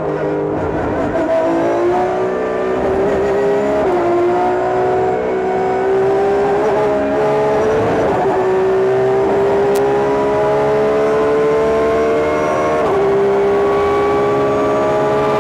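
Porsche 911 GT3 R race car's flat-six engine heard onboard at racing speed: the note drops as the car slows for a corner, then climbs hard under full throttle, with quick upshifts about four seconds in and again near the end.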